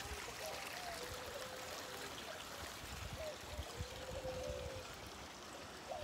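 Faint, steady outdoor background hiss, with a few soft, low gliding calls about a second in and again near four seconds.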